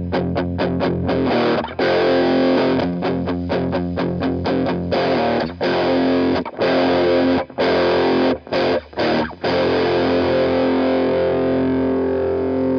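Electric guitar played through a Walrus Audio Iron Horse LM308 distortion pedal: a riff of fast, tightly muted chugs broken by several short stops, then a distorted chord left to ring out for the last few seconds.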